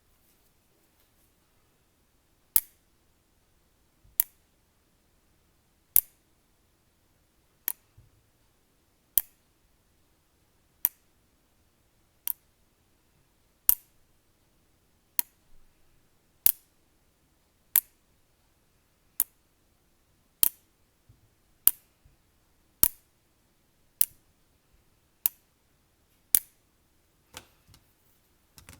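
A series of sharp, short clicks, about twenty of them after a couple of seconds of near silence. They start roughly a second and a half apart and come slightly faster, about one a second, near the end.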